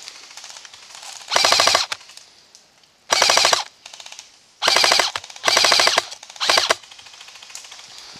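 Airsoft rifle fired on full auto in five short bursts of rapid clicks, each about half a second long, the last one the shortest.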